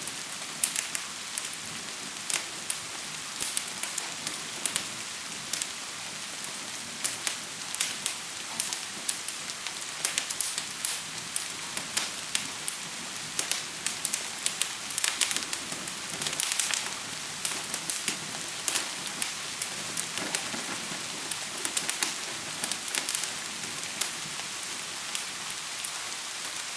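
Steady hiss of gentle rain, with irregular sharp crackles and pops from a fire scattered throughout.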